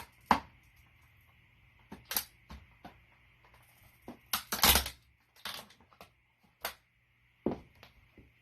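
Plastic toy car cracking and snapping under a boot: a run of separate sharp cracks and clicks at uneven intervals, with the loudest cluster about four and a half seconds in.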